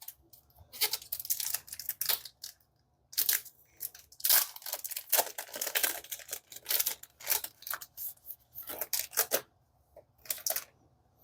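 Packaging of a pack of trading-card sleeves being torn open and handled: a run of irregular tearing and rustling noises with short pauses.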